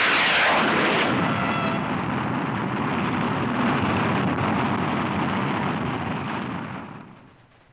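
Cartoon rocket blasting off: a loud rushing roar of exhaust that starts suddenly and fades away over the last second or so.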